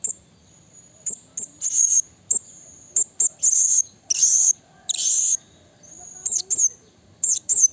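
Blue-crowned hanging parrot (serindit) calling: an irregular run of sharp, very high-pitched chirps, several a second. A few longer, harsher notes come around the middle, and a thin high whistle carries on between the calls.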